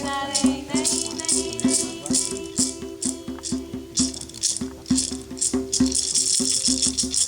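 Hand rattle shaken in a steady rhythm, about three beats a second, over a low steady tone.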